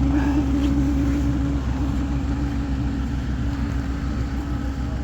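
A motor vehicle engine idling steadily: a low, even hum with a constant tone, easing slightly about two seconds in.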